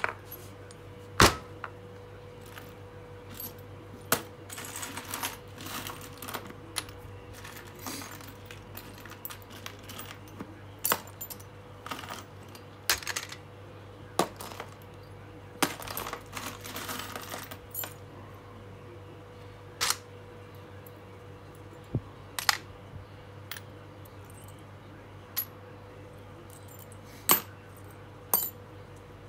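Loose old metal screws clinking and rattling as they are picked from a pile of rusty hardware and dropped into a plastic sorting tray: scattered sharp clicks with a couple of short spells of rummaging. A faint steady hum runs underneath.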